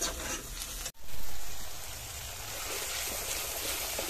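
Onion-and-spice masala sizzling in hot ghee in an iron karahi, a steady hiss. It breaks off for an instant about a second in, then comes back louder.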